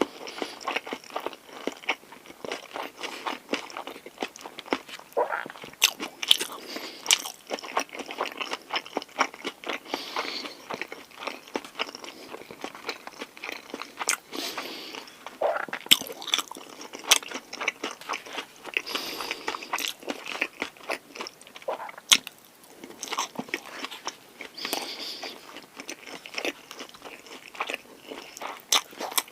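Close-miked eating of a 7-Eleven pork galbi lunchbox: chewing and crunching in a continuous run of crisp mouth clicks and crunches, with a few louder sharp ones.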